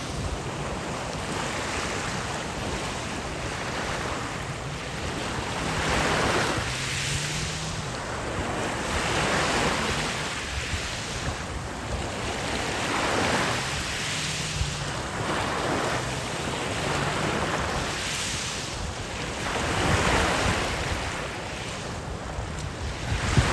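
Sea waves breaking and washing up on the beach, the surge swelling every two to three seconds, with wind rumbling on the microphone.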